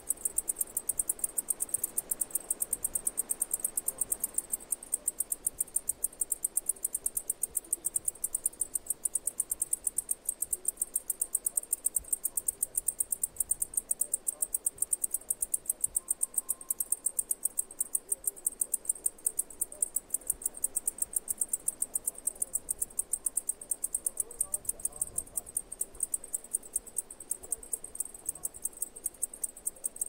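Cicada calling: a steady, rapid train of high-pitched pulses, several a second, at an even level throughout.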